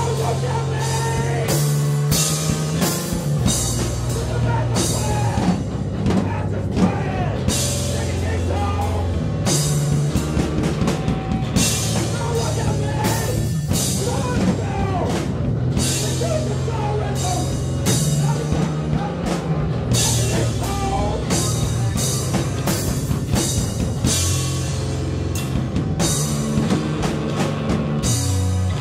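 A rock band playing live: a drum kit hitting hard and often, with crashing cymbals, over bass guitar and electric guitar.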